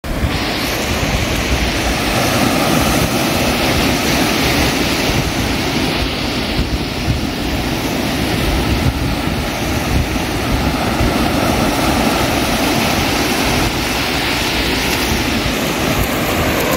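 Ocean surf washing up the beach, a steady rushing noise, with wind buffeting the microphone and giving a heavy rumble.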